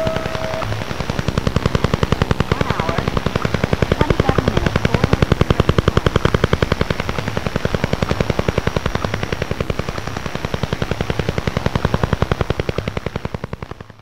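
Spirit Radio crystal-diode circuit signal, fed into a computer and made audible, as a rapid, even train of sharp electronic pulses, about ten a second. A steady high tone sounds in the first half second, and the pulsing cuts off abruptly at the end.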